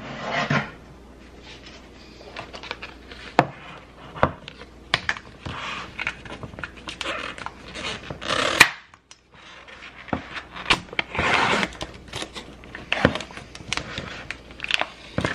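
Kitchen containers being handled: a screw lid worked off a tin canister and a foil bag rustling, with repeated sharp clicks, knocks and scrapes. There is a short break partway through.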